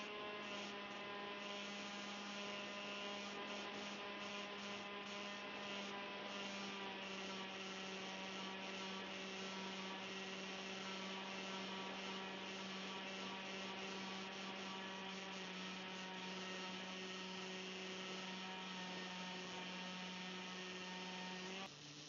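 Steady electric hum with many overtones from the small RC wing's electric motors, heard through the onboard micro camera's microphone during level flight. Near the end it cuts to a quieter, lower-pitched hum.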